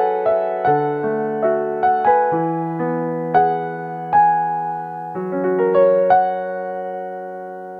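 A piano playing the slow closing bars of a ballad, a few notes a second easing off, then a final chord struck about six seconds in that is left to ring and fade away.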